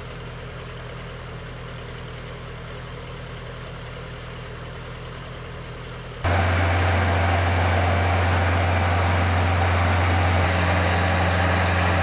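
Engine of a boom lift running steadily with a low hum, stepping up abruptly to a louder run about six seconds in.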